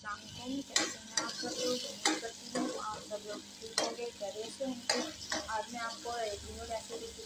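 Chopped onions sizzling as they fry in oil, stirred with a spoon that knocks and scrapes against the pan several times.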